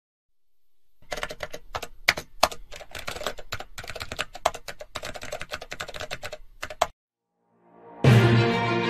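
Fast typing on a laptop keyboard: a rapid, irregular run of key clicks for about six seconds that stops abruptly. After a short silence, music comes in near the end.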